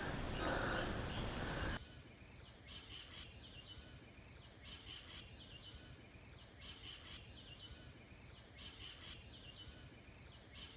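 A bird calling repeatedly, a short cluster of high chirping notes about every two seconds. Before it, a loud rustling noise cuts off suddenly about two seconds in.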